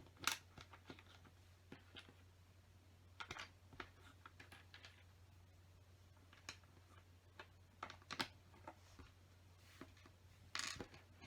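Scattered small plastic clicks and clatter of LEGO bricks being picked up and pressed together, with a small cluster near the end, over a faint steady hum.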